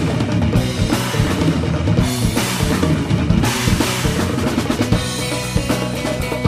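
Band music with the drum kit to the fore: bass drum and snare under several cymbal crashes, over sustained low notes.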